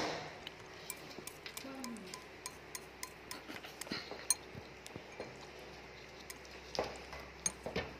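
A large rat chewing a piece of soft yellow food: an uneven scatter of small wet clicks and ticks as it bites and chews, busier near the end.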